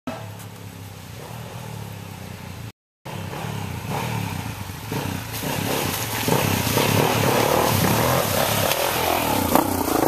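Dirt bike engine running as the bike approaches, growing steadily louder, then a heavier rush of engine and splashing from about six seconds in as the bike rides through a shallow ford. There is a brief cut-out in the audio just before three seconds.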